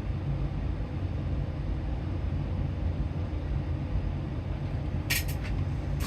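A steady low rumble, with a short run of small sharp clicks and taps near the end from tools working on a soldering iron tip.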